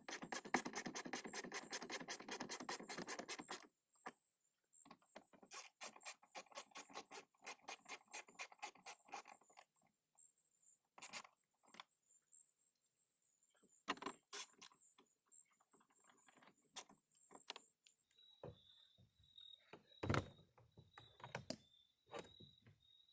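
Hand ratchet on a 10mm socket clicking rapidly as a bolt is run down, then a slower run of clicks, followed by scattered single clicks and knocks.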